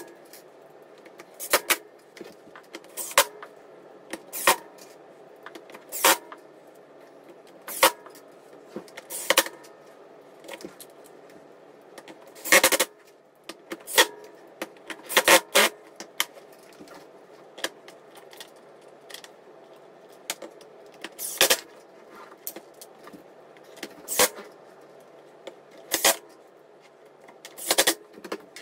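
Repeated sharp clicks and clacks of hard plastic and metal parts being handled as caster wheels are bolted onto a plastic platform cart. They come about every second and a half at first, then more irregularly.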